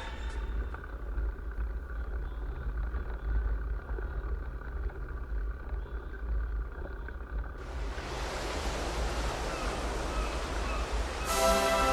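Wind rumbling on the microphone. About eight seconds in, a steady hiss comes in suddenly and grows louder.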